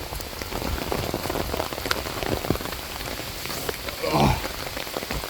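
Rain falling on an umbrella, a steady hiss with many separate drop ticks. About four seconds in comes a short falling "oh" of effort.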